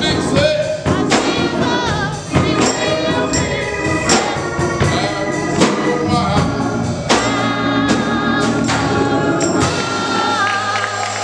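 Gospel choir singing with band accompaniment and a tambourine keeping the beat; the bass drops out near the end.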